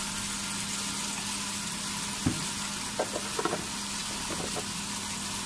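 Potatoes, peas and tomatoes frying in oil in a pan, a steady sizzle with a low hum underneath. A few small clicks or pops come a little after two seconds in and again around three seconds.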